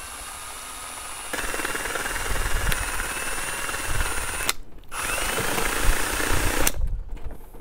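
Cordless drill running a twist bit into a plastic water bottle to bore a vent hole: a steady motor whine that gets louder about a second in, stops just past the middle, then runs again for about two seconds.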